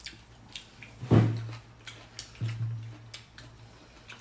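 Eating at the table: soft clicks of chopsticks against a bowl and chewing, with two short low closed-mouth hums, one about a second in and another past the middle.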